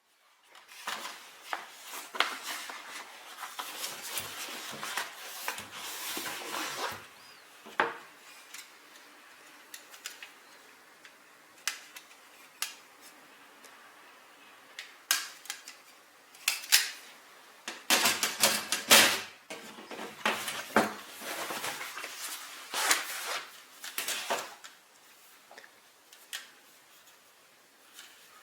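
Metal parts of a folding fire pit being handled and fitted together: irregular clinks, rattles and scrapes of metal on metal. They come thickest in the first seven seconds and again from about eighteen to twenty-five seconds in.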